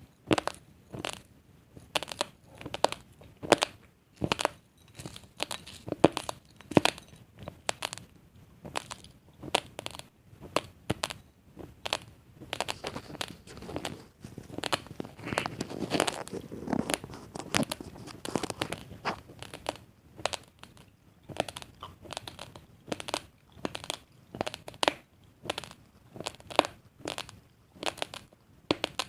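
Raw basmati rice grains crunched between the teeth while chewing, heard close up: irregular sharp crunches with short pauses between them, thickening into a dense run of grinding crunches about halfway through.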